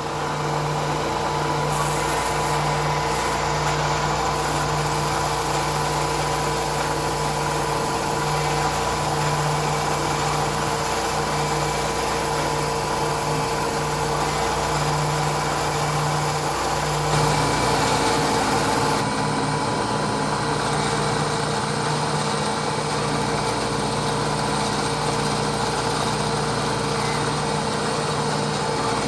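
Bridgeport Series 1 CNC milling machine running steadily, its spindle and end mill cutting a clamped metal plate. The hum and hiss change character about 17 seconds in.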